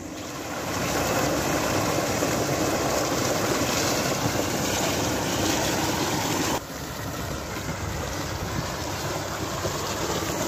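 Steady rush of water pouring from a tubewell's outlet pipe and splashing into a pool, dropping to a lower level about six and a half seconds in.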